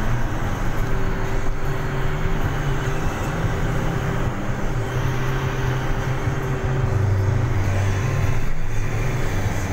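Vehicle engine and road noise heard from inside the cabin while driving on a dirt road. The low engine hum drops in pitch about seven seconds in, then rises again.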